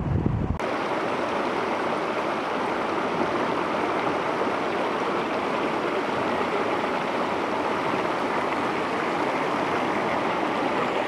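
River water rushing steadily over a shallow gravel bar and stones. It starts abruptly about half a second in, after a brief low rumble of wind on the microphone.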